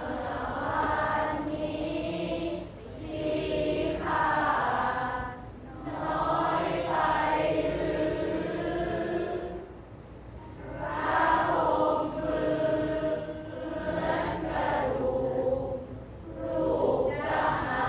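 A class of students reciting a Thai klon suphap poem aloud in unison, chanted in the melodic thamnong sanoh style, phrase by phrase with short pauses between lines.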